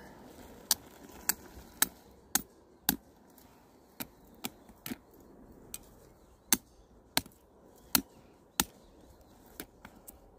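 Hammer blows, sharp separate strikes about two a second, in two runs with lighter taps between them.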